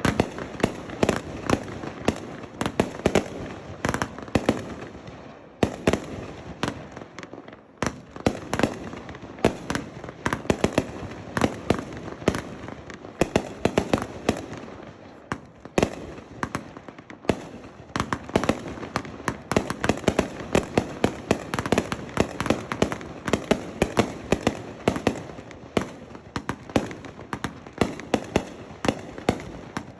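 Three 500-gram consumer firework cakes fired together as a finale: a rapid, unbroken barrage of shells lifting and bursting, many reports a second over a steady crackle.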